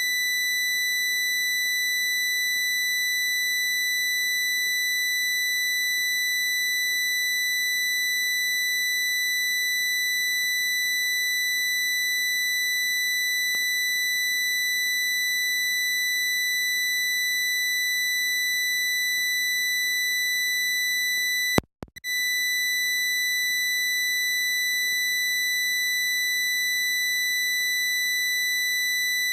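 A loud, steady high-pitched electronic tone that holds one pitch without a break. About twenty-one seconds in it cuts out for a moment with a click, then resumes.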